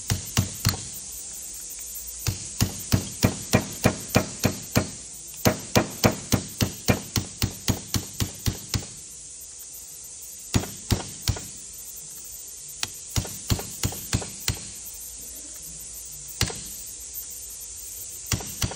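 Ball-peen hammer striking a roll pin punch, driving a long roll pin into a Detroit Diesel 6V92 turbo boost modulator: runs of sharp metallic taps about three a second, broken by short pauses.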